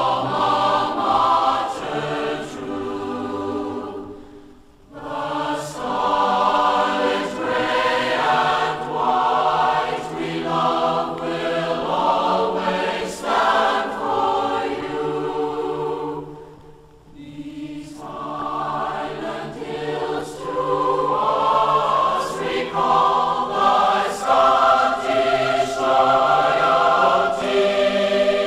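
Background music: a choir singing sustained chords, with two short breaks, about four and a half and about seventeen seconds in.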